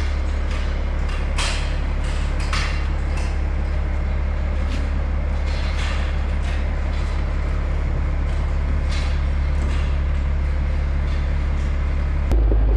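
A steady low machine hum with scattered clanks and knocks over it, changing abruptly near the end.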